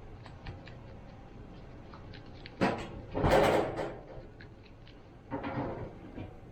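Handling noises while coating meat with a dry rub: a sharp knock about two and a half seconds in, then a louder burst of rustling noise lasting under a second, and a shorter, weaker one near the end, with faint light clicks throughout.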